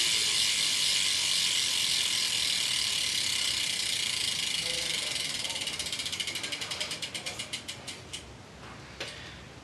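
Stolen Revolver BMX cassette rear hub freewheeling as the spun wheel coasts down: a fast, continuous ratcheting buzz that slows over the last few seconds into separate clicks and stops. A loud hub, louder since being broken in.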